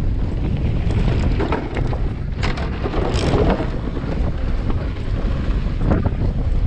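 Wind buffeting an action camera's microphone as a Marin Alpine Trail Carbon 2 mountain bike rolls fast down a dry dirt trail, the tyres crunching over loose dirt and the bike rattling. Brief harsher scrapes come about two and a half and three seconds in, and again near the end.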